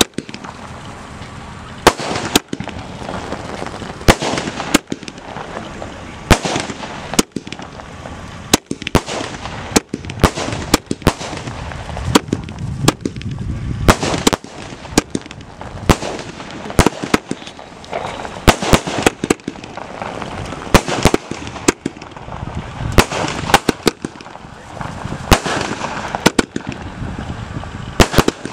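A 500-shot aerial firework cake firing continuously: sharp bangs of bursting shots, roughly one or two a second at irregular spacing, over a constant crackle and hiss.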